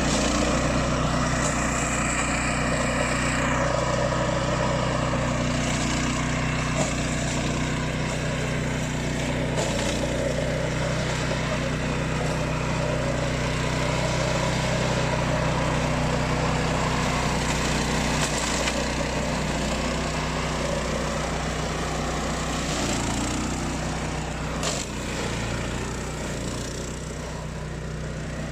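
Beast 800 remote-control flail mower running steadily, its engine humming with the flail rotor spinning. The sound eases slightly near the end.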